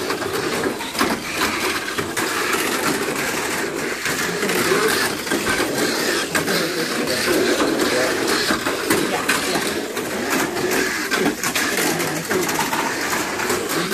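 Tamiya Mini 4WD cars running laps on a plastic slot-style track: a steady high whir of small electric motors and gears, with continual clicking and rattling as the rollers and bodies knock against the lane walls.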